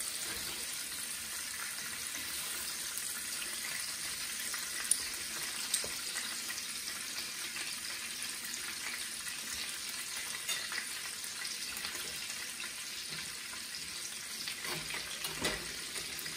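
Deer steak sizzling in hot oil in a nonstick frying pan: a steady hiss, with a couple of sharp pops of spattering fat about five seconds in.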